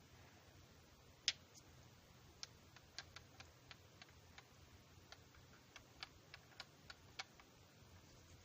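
Faint, irregular small clicks and taps, about fifteen of them, with one sharper click about a second and a half in, over a quiet hiss.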